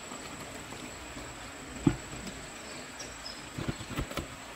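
Crickets keeping up a steady high-pitched trill in the night, with one sharp knock about two seconds in and a few softer thumps near the end.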